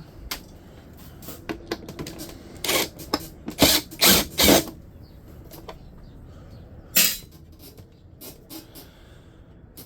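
Hand tools and metal parts being worked while taking apart a dehumidifier: scattered clicks and clinks, with a cluster of louder short scraping rattles a few seconds in and another one about seven seconds in.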